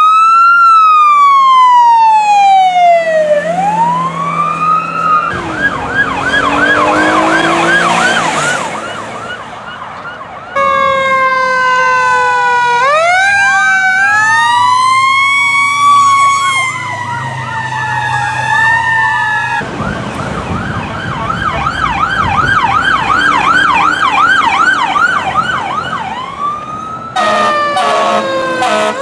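Emergency-vehicle electronic sirens. Over the first few seconds an ambulance siren winds up and down in a slow wail, then switches to a fast yelp. A fire engine's siren then cycles between wail and yelp, and near the end a different siren pulses rapidly.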